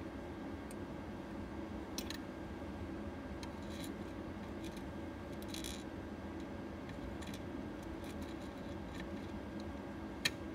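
Metal tips of laparoscopic grasping instruments clicking and scraping against a small bowl of beads and plastic pegs: a few sharp clicks, the sharpest near the end, and a couple of brief rattling scrapes. A steady low hum sits underneath.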